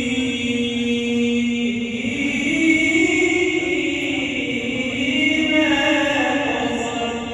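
A man's voice chanting an Islamic ibtihal (devotional supplication) in long held notes, the pitch stepping up about two seconds in.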